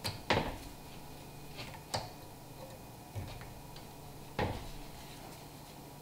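Sharp metal clicks and clinks, about three main ones a couple of seconds apart with a few lighter ticks between, as snap-ring pliers work a snap ring onto a Dana 44 knuckle's lower ball joint.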